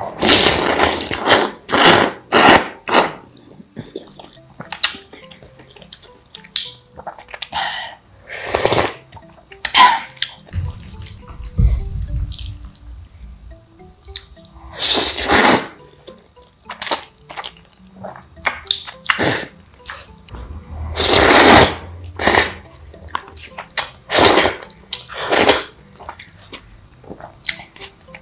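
Close-miked noodle slurping and chewing while eating jjajangmyeon: loud, wet slurps come every few seconds, several in quick succession at the start, with soft mouth and utensil sounds between.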